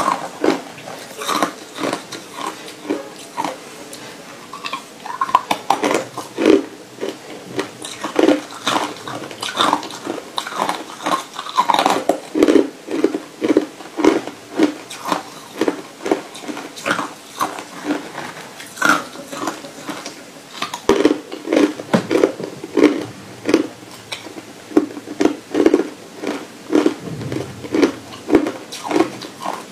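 Hard crushed ice being chewed close to the microphone: a steady run of sharp, crackling crunches, about two a second.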